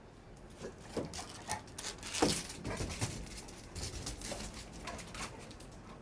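Pit bull dogs making a run of short, repeated vocal sounds, the loudest a little after two seconds in.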